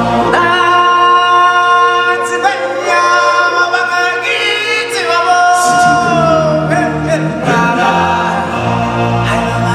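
Voices singing together with musical accompaniment, in long held notes and slow glides.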